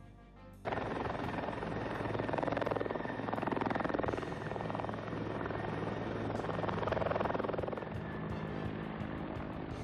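Helicopter flying overhead, its rotor chop a steady fast pulsing over a low engine hum. It cuts in suddenly less than a second in and swells louder and softer as it passes.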